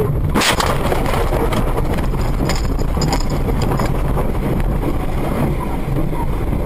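Car crash: a sharp impact about half a second in, then several seconds of continuous rough rumbling and clattering as the crash runs on.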